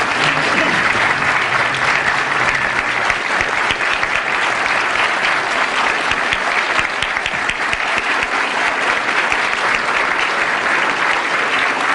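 A large audience applauding steadily in a standing ovation: many hands clapping densely together at an even level.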